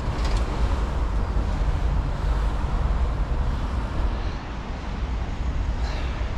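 Steady road traffic noise from a busy multi-lane avenue, over a heavy low rumble.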